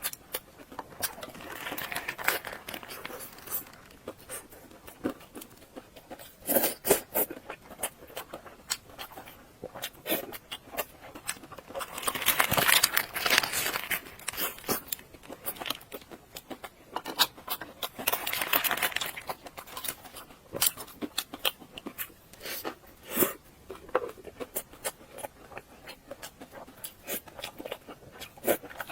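Instant noodles being handled and eaten: close, irregular crackling, tearing and crunching, with louder spells of crinkling about 12 and 18 seconds in.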